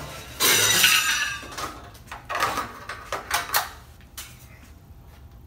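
A steel bandsaw blade rattling and clattering as it is handled on a DoAll vertical bandsaw: one loud clatter about half a second in, several shorter rattles around two to three and a half seconds, then a few faint clicks.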